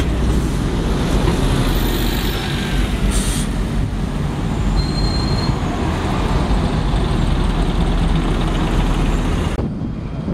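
Single-decker buses passing close by, engines running and tyres rumbling on the road, with a short hiss of air about three seconds in. Near the end the sound drops suddenly to quieter, more distant traffic.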